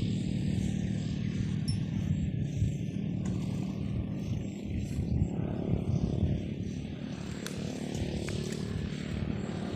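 A small engine running steadily, a low drone with no clear change in speed.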